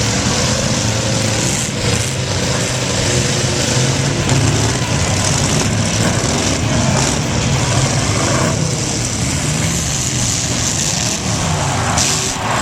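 Demolition derby cars' engines running loudly together, with engines revving up and down in pitch through the second half.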